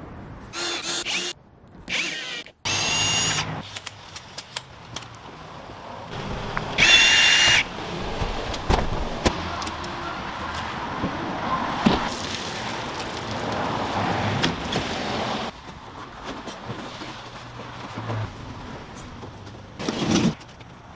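Short, cut-together work sounds: brief bursts of a cordless drill whirring, the loudest about seven seconds in, between knocks and scrapes of wooden panels being handled, over steady background noise.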